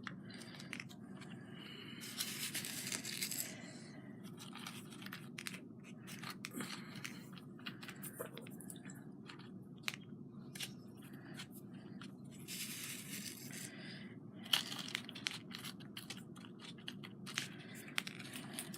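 Small craft handling noises: scattered light clicks and taps as small glass pieces are set in place, with three short bursts of rustling or tearing, the first about two seconds in and two more near the end.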